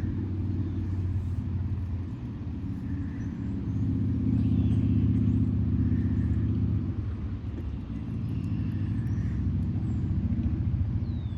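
A steady low outdoor rumble that swells and eases over a few seconds, with faint short high chirps scattered through it.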